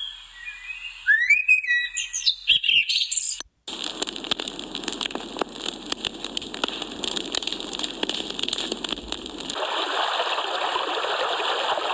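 Tinnitus-relief nature-sound samples played one after another: chirping birdsong with quick sliding whistles, which cuts off abruptly about three and a half seconds in. A steady hiss with many small crackles follows, and near ten seconds in it gives way to a smoother, fuller rushing sound like a flowing stream.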